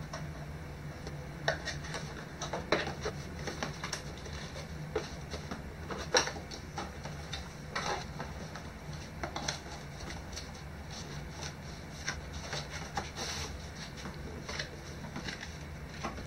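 Cardboard packaging being handled: irregular taps, knocks and scrapes as small boxes are lifted out of a cardboard box and set back in it, over a steady low hum.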